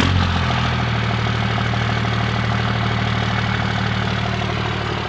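A 24-valve 5.9 L Cummins diesel in a 2nd gen Dodge Ram fires at once, right at the start, and settles into a steady idle: the fuel system, freshly primed after the lift pump install, is feeding the engine.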